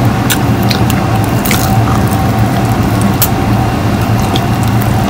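A person chewing a mouthful of pizza close to the microphone, with scattered wet mouth clicks, over a steady low background hum.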